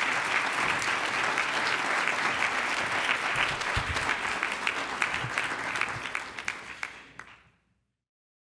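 Audience applauding, many hands clapping steadily, fading out about seven seconds in.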